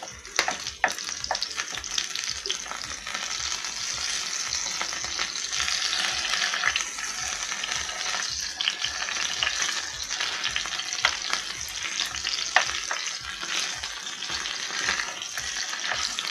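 Chicken pieces sizzling steadily as they fry in hot oil in a pan, with a few sharp taps as the pieces are turned over.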